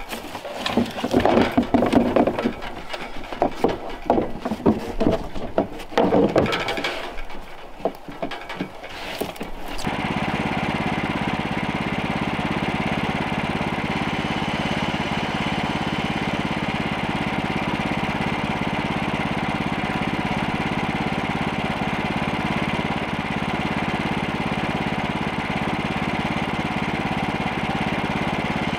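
Irregular metal clanks and knocks as parts of a portable bandsaw sawmill's blade housing are handled, then from about ten seconds in a small gasoline engine running steadily at idle.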